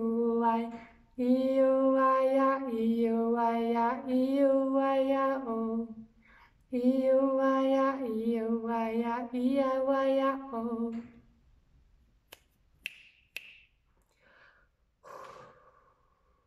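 A woman singing wordless 'light language' tones in long held notes that step between two close pitches, in two phrases. Near the end, three sharp clicks and a short vocal sound.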